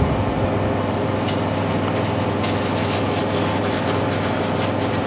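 Steady hum of a kitchen appliance's fan motor, with faint light rustles and clicks from bacon being picked apart by hand.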